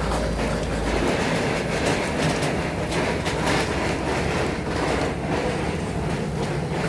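Steady street noise on a rainy road: a continuous rumble and hiss of rain and passing traffic, with scattered clicks.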